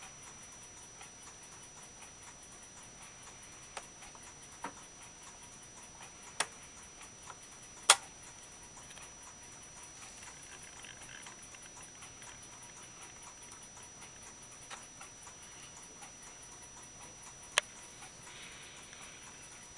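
Tamura Lumitime neon-segment clock's mechanism ticking faintly about once a second, with a few sharper, louder clicks in between, the loudest about eight seconds in.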